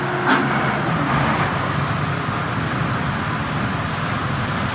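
Diesel engine of a Tadano mobile crane running steadily, mixed with road traffic noise, with one short knock about a third of a second in.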